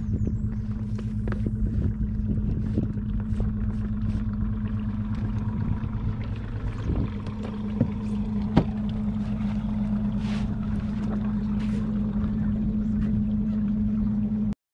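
Boat motor idling with a steady low hum, overlaid by scattered clicks and knocks of gear being handled in the boat, one sharper knock a little past halfway.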